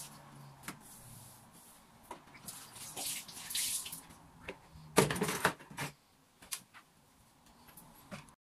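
Water running from a tap in short spurts, with scattered clicks and knocks of things being handled and a louder clatter about five seconds in.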